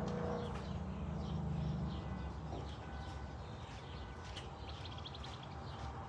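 Faint bird chirps over a quiet outdoor background with scattered light clicks, including a short rapid trill about five seconds in; a low hum fades out about two seconds in.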